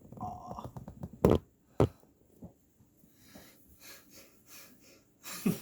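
Rustling handling noise, then two sharp knocks about half a second apart, followed by faint fumbling and a sharp breath near the end.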